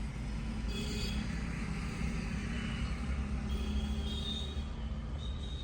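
Steady low hum of a Maruti Eeco van's engine idling, with a few faint high tones over it.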